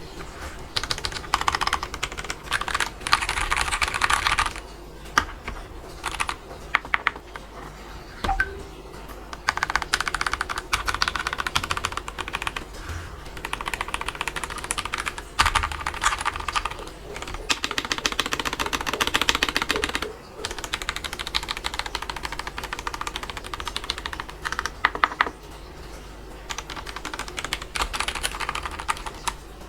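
Typing on a Press Play Rover84 V3 mechanical keyboard fitted with Gateron Yellow linear switches: fast runs of clacking keystrokes lasting a few seconds each, with brief pauses between runs.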